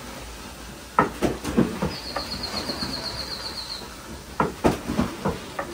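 Sharp knocks and clatter in two bursts, with a high, rapid trill lasting about two seconds between them.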